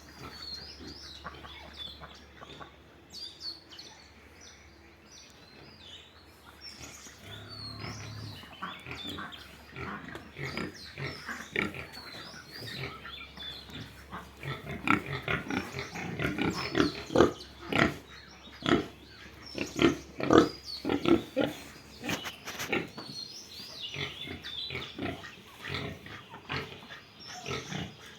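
Pigs calling in many short, overlapping bursts, sparse and quieter at first, then louder and more frequent from about halfway through.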